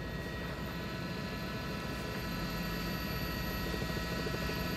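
News helicopter in flight: steady rotor and engine noise, with a fast low flutter from the blades under a steady whine.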